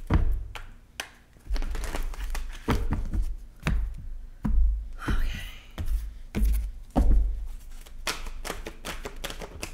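A tarot deck being shuffled by hand: repeated sharp card clicks and flutters, with a low thump every second or so.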